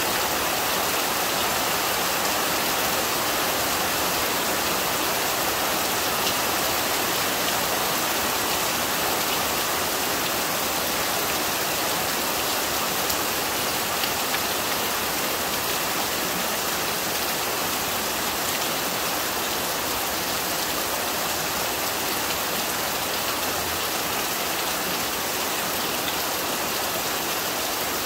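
Heavy monsoon rain falling steadily, spattering on wet ground and puddles, with water pouring off a roof edge.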